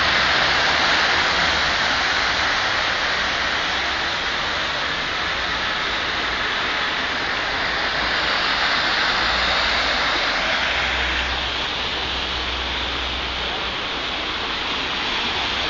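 Steady rushing and splashing of floodwater running over a street after a cloudburst, with a low rumble swelling and fading about two-thirds of the way through.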